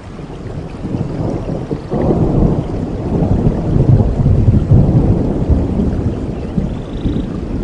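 Thunder rolling over steady rain: a deep rumble builds, swells sharply about two seconds in, is loudest around the middle, then slowly fades.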